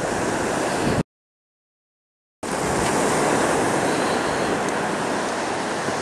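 Surf and wind rushing on the built-in microphone of a Sony NEX-5N camera, broken about a second in by a dead-silent gap of about a second and a half. Faint sharp clicks ticking near the end are the NEX-5N's known audio clicking defect.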